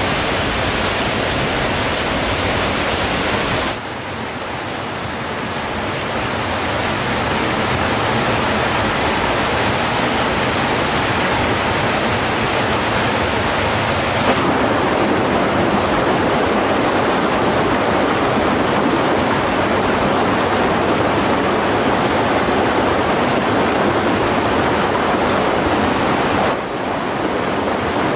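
Rushing stream water pouring over rocks into a pool: a loud, steady hiss of moving water with no pitch. Its tone and loudness change abruptly about four seconds in, again around fourteen seconds, and briefly near the end.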